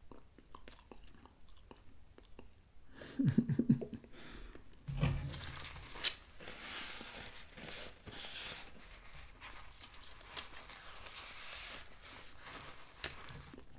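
Chewing a mouthful of beef meatball, with small wet mouth clicks, and a brief low hummed sound from the eater about three seconds in. From about five seconds in, a paper napkin rustles and crinkles as it is handled and wiped across the mouth.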